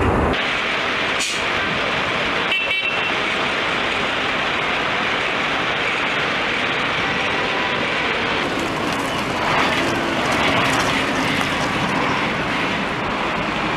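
Armoured personnel carriers driving off in a column, their engines and wheels making a steady running noise. There is a short high beep about two and a half seconds in.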